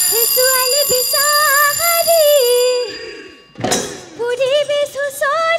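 A woman singing a wordless Bihu melody into a stage microphone, holding long notes and ornamenting them with quick turns. A steady high whine sits under the first half. The line breaks off, a short noisy burst comes about three and a half seconds in, and the singing starts again.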